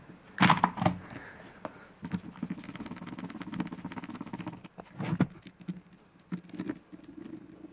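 Handling and screwdriver work on a plastic-bodied power drill as a part is fitted back on: a run of quick small clicks and rattles, with a louder knock about half a second in and another about five seconds in.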